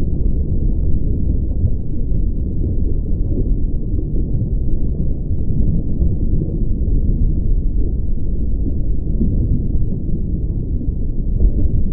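Steady, deep, muffled rumbling noise with no distinct tones or beat, holding the same level throughout.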